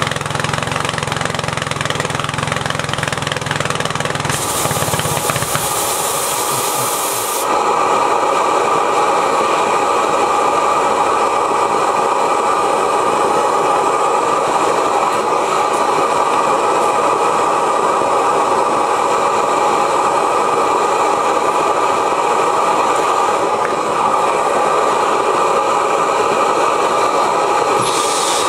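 Steady hissing roar of the propane burner that heats the hot tube on a 1905 Reid hot-tube two-cycle oilfield engine. About four seconds in there is a sharp, bright hiss lasting about three seconds, like a gas or air valve opened and shut; from there on the steady hiss is louder.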